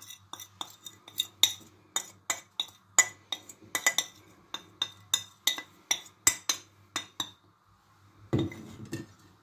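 Spoon and plate clinking against a glass mixing bowl as ground spices are knocked off the plate into it: a quick run of sharp clinks, about three a second, stopping after some seven seconds, then one short duller sound near the end.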